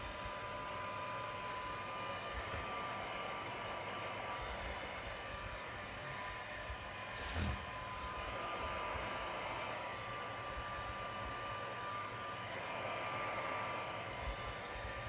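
Handheld hot-air blower running steadily, an even rush of air with a steady whine, heating a phone's back cover so its double-sided tape sticks again. A single short knock about seven seconds in.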